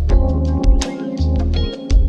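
Instrumental background music with sustained notes over a steady beat.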